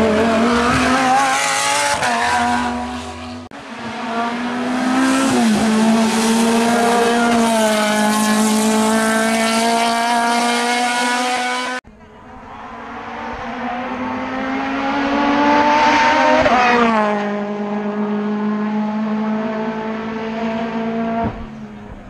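Race car engines at full throttle on a hillclimb, in three cut-together clips: first the Lamborghini Huracán GT3 accelerating out of a hairpin with its pitch rising, then a car holding high revs with brief gear-change dips, then a car approaching that swells to its loudest and drops in pitch as it passes close by.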